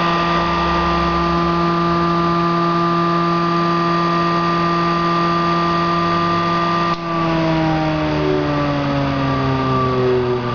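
Home-built Bedini pulse motor, a magnet rotor on a hard-drive bearing driven by a pulsed coil, running with a steady high hum rich in overtones. About seven seconds in there is a click, and then the hum's pitch falls steadily as the rotor slows down.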